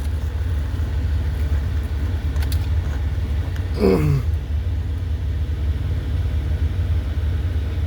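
Steady low rumble, with one short vocal sound gliding downward in pitch about four seconds in.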